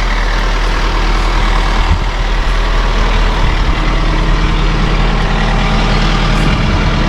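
John Deere 4052R tractor's diesel engine running steadily at low idle.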